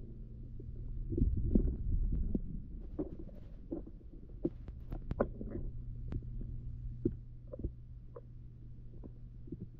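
Muffled underwater sound picked up by a GoPro in its waterproof housing in a small pond: a steady low hum with scattered sharp clicks and soft thumps. A louder low rumble comes between about one and two and a half seconds in.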